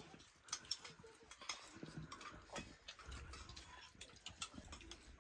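Metal spoons tapping and scraping against steel bowls: faint, scattered light clicks at irregular intervals.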